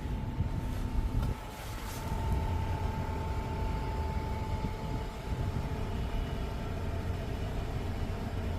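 2024 Mazda CX-90 PHEV, parked and switched off, giving off a steady low grinding buzz with a thin whine above it. It is the random fault noise that starts after the car has been driven in EV mode and parked.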